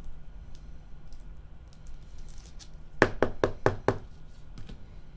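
Five quick knocks against a tabletop in under a second, about three seconds in, amid light clicking of trading cards and plastic card holders being handled.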